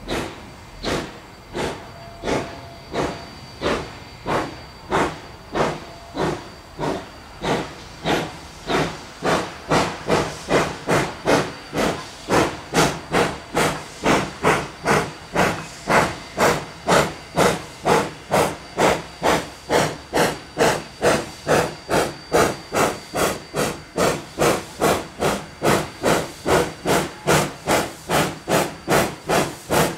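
Exhaust chuffs of the Rio Grande Southern #20, a narrow-gauge 4-6-0 steam locomotive, working under steam. The beats come about once a second at first, then quicken to about two a second and grow louder from about ten seconds in as the engine picks up speed.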